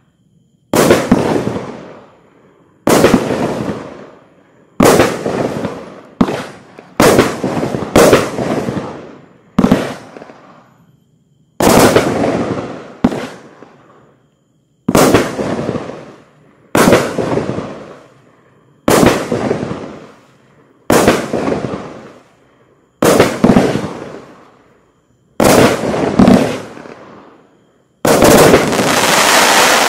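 Riakeo Vortex 5, a 21-shot 30 mm firework cake, firing its shots one after another, roughly one every two seconds with some in quick pairs. Each bang trails off over a second or two. Near the end the shots come together in a dense finale.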